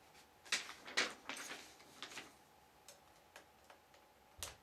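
A few faint, irregular clicks and taps from hands handling a plastic Cyberman mask.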